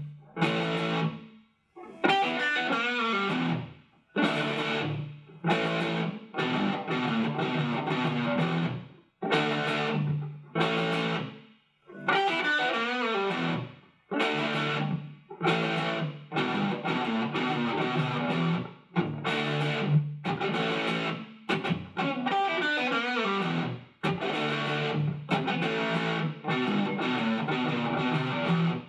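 Shelter SG-style electric guitar with twin humbucking pickups, played with distortion: a riff of chord strikes cut off by short gaps, with a string-bending lick about every ten seconds.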